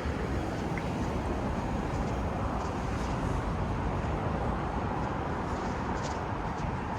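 Town-street traffic ambience: a steady low rumble of passing vehicles, with a few faint light ticks scattered through it.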